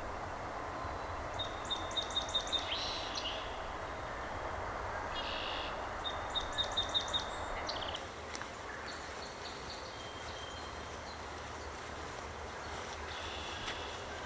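A songbird singing two phrases, each a quick run of repeated high notes ending in a buzzier flourish, then fainter high calls. A steady low background noise runs under them.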